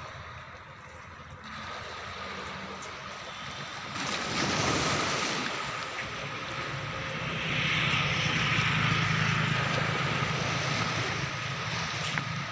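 Outdoor noise of wind on the phone microphone and small waves washing against the rocks, swelling about four seconds in and loudest around eight to eleven seconds.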